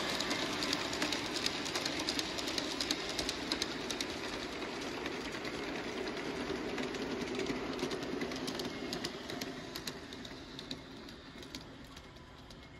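G scale model train running past on its track, wheels clicking and rattling over the rails with a steady running noise. The sound fades steadily as the train draws away.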